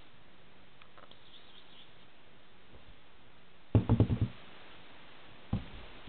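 A quick run of about five sharp knocks just under four seconds in, then one more single knock near the end, over a steady faint hiss.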